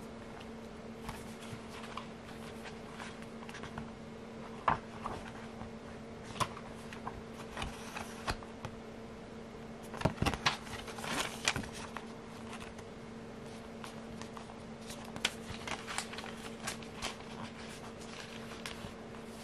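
Steady low electrical-sounding hum under quiet room tone, with scattered soft clicks and rustles and a brief cluster of them about ten seconds in.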